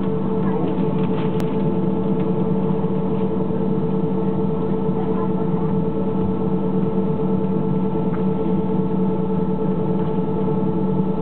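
Airbus A320-family airliner's jet engines at low taxi power, heard inside the cabin over the wing: a steady hum made of several held tones over a constant rush of noise.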